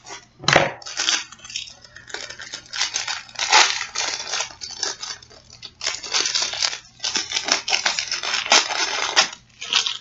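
A product's wrapper being torn and crinkled open by hand: a dull thump about half a second in, then bursts of crackling and rustling that stop just before the end.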